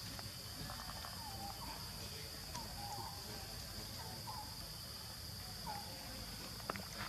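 Steady high-pitched drone of insects, one unbroken tone, with a few faint short chirps and a couple of light clicks near the end.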